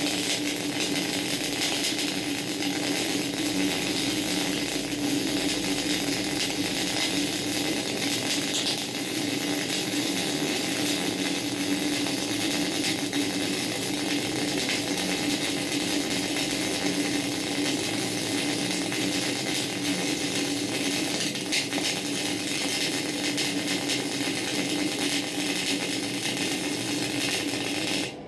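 MIG welding arc burning steadily, a continuous crackling sizzle over a steady low hum as a bead is run, cutting off just before the end when the trigger is released.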